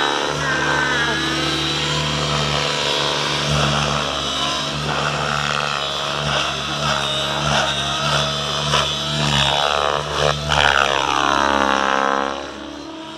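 Radio-controlled 3D aerobatic helicopter in flight, its motor and rotor running steadily with the pitch rising and falling as it manoeuvres. About ten seconds in the pitch sweeps sharply, then the sound drops off noticeably near the end.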